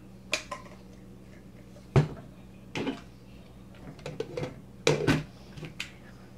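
Plastic salad chopper parts knocking and clattering on a countertop as they are handled, a few sharp knocks with the loudest about two seconds in, over a faint steady hum.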